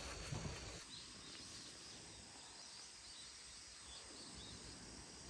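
Faint rural outdoor background: a soft steady hiss with small, high bird chirps repeating every second or so.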